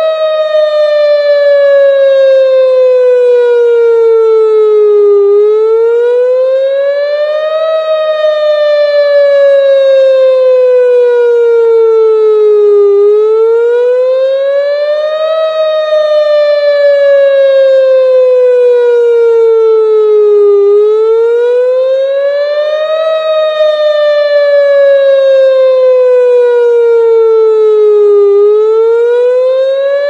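Whelen WPS-2906 electronic outdoor warning siren sounding a loud wail: one tone with many overtones rising in about two and a half seconds and sliding slowly back down over about five, repeating about every eight seconds.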